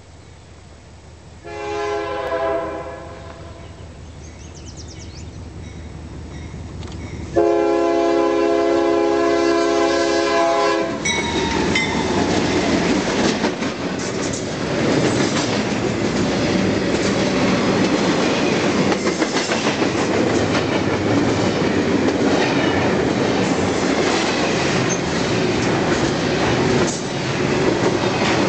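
CSX double-stack container train: the locomotive's air horn sounds a short blast about a second and a half in and a longer, louder one about seven seconds in, signalling for the grade crossing. The locomotives and stack cars then pass close by, with a steady rumble and wheels clattering over the rail joints.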